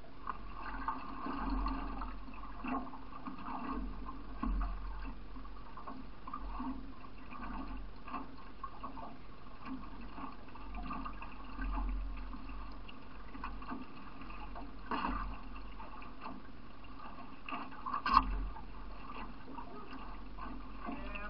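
River water rushing and gurgling around the hull of a solo racing canoe running through riffles, with a few sharp knocks, the loudest near the end.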